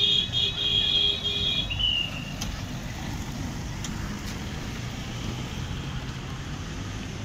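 A police escort vehicle's electronic siren sounding in a string of short, evenly broken blasts for about the first second and a half, ending in a brief falling tone. Then the steady engine and tyre rumble of convoy cars and an SUV passing on a dirt road.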